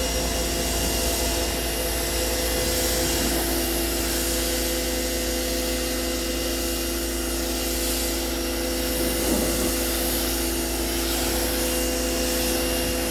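Giraffe Tools Grandfalls wall-mounted electric pressure washer running steadily while spraying to rinse a car: a constant motor-and-pump hum under the hiss of the water jet.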